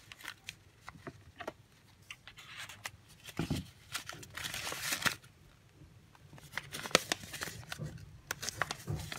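Kraft-paper packet being handled and opened, its ribbon tie pulled loose: irregular rustling and crinkling of paper with scattered light clicks and taps.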